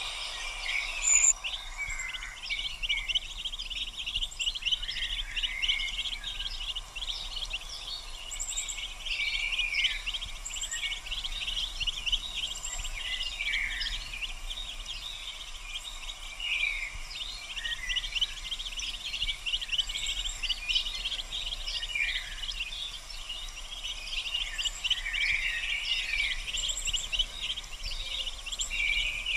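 A brood of mallard ducklings peeping: many short high chirps overlapping with no break, with a few very high short notes above them.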